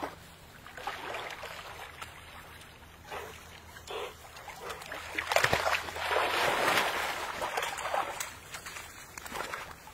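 Water splashing and sloshing as Labrador retrievers swim and wade at the edge of a pond, with a louder stretch of splashing about five to seven seconds in.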